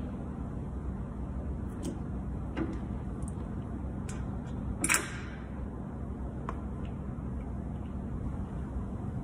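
A few light metal clicks of a drill-press chuck key and bit being handled, then one louder metal clack about five seconds in as the key is set back into its holder on the drill press head. A steady low hum runs underneath.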